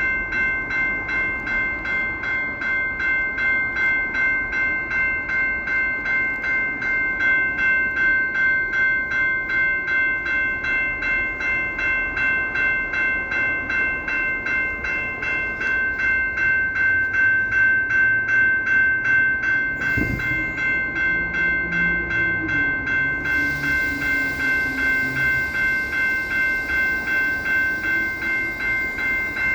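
Locomotive air horn blowing one long, unbroken chord of several notes, its loudness pulsing evenly about three times a second, with a thump about twenty seconds in.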